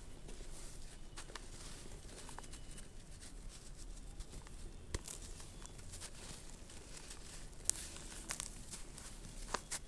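Red dirt crumbling and falling in small pieces onto a hard floor: a steady scatter of soft crackles and ticks, with a few sharper clicks from a larger lump landing about halfway through and again near the end.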